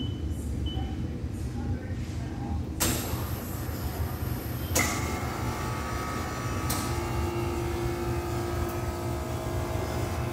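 Soft-serve ice cream machine running under test: a steady low machine hum. Sharp clicks come about halfway through, and a higher steady whine sets in after them.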